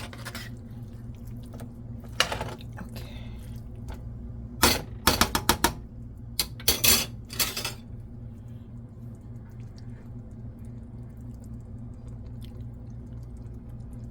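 A spoon clinking and scraping against a cooking pot in several short bursts during the first half, over a steady low hum.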